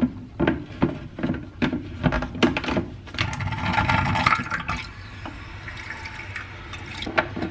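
Kitchen clatter of pots and lids knocking, then water running from a tap for about two seconds.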